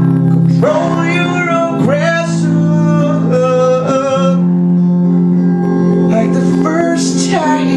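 A man singing over held guitar chords, his voice sliding up in pitch into several of the phrases.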